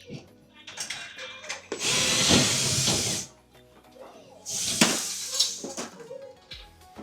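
Power drill run in two bursts, a longer one of about a second and a half and a shorter one about five seconds in.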